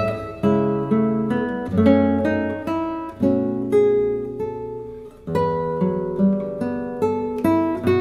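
Background music: a guitar plucking slow chords and single notes, each ringing out before the next.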